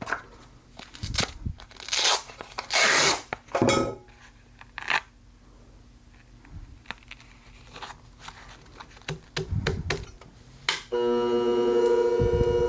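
Several short ripping sounds and clicks as a worn 400-grit abrasive disc is pulled off the sharpening machine's plate and a fresher one is fitted. Near the end the sharpening machine's motor switches on with a steady hum.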